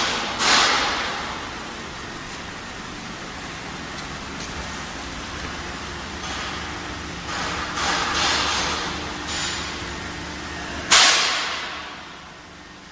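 Steady hum from a hydraulic plywood cold press, broken by sudden hissing bursts that die away over about a second: one right at the start, another half a second later, a cluster about eight seconds in, and the loudest about eleven seconds in.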